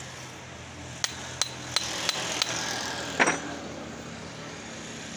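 Metal tapping on the steel of a hydraulic bottle jack: five sharp taps in quick succession, about three a second, then one louder clank with a short ring.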